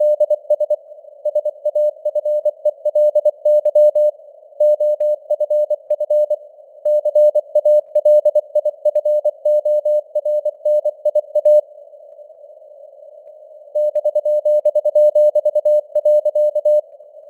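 Morse code (CW) at 24 words per minute: a single tone near 600 Hz keyed in quick dots and dashes over a narrow band of simulated radio hiss. The keying pauses for about two seconds in the middle, leaving only the hiss, then resumes and stops shortly before the end.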